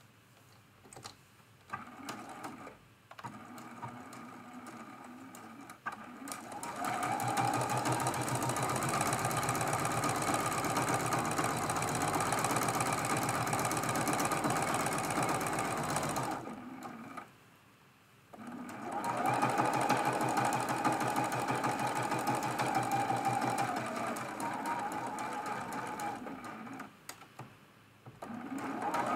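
Juki sewing machine stitching a seam: a few slow short runs at first, then a steady run at full speed, a pause of about two seconds near the middle, a second steady run, and short start-and-stop runs near the end, a couple of stitches at a time around a curve. It runs smoothly without squeaking, its bobbin area freshly cleaned of a ball of lint.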